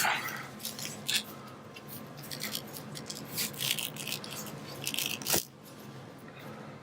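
Rubbing and rustling of a small cloth jacket being worked off a plastic action figure by hand, with a few light clicks, the sharpest about five seconds in.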